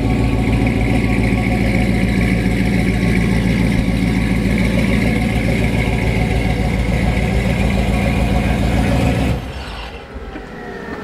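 The 2003 Chevy Silverado's ProCharger-supercharged 5.3-litre V8 running at idle with a steady, pulsing exhaust note, then switched off abruptly about nine seconds in. A faint whine, slowly falling in pitch, is left after it.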